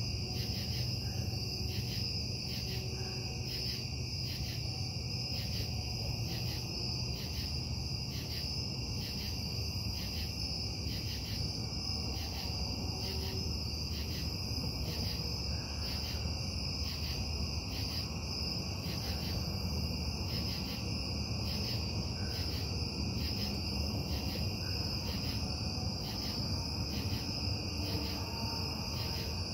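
Steady low industrial rumble from the Casting Solutions metal-casting plant carrying into a bedroom at night, with crickets chirping in an even, pulsing rhythm over it.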